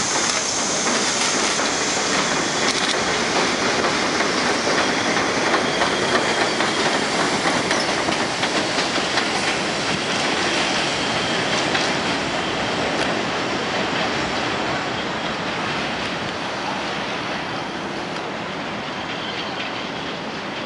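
R62A subway train running out of an elevated station, its wheels clattering over the rails, growing gradually fainter through the second half as it moves away.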